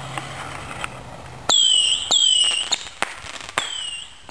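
Whistling fireworks going off one after another: shrill whistles that fall in pitch, each about half a second long, the first about a second and a half in, with sharp cracks among them.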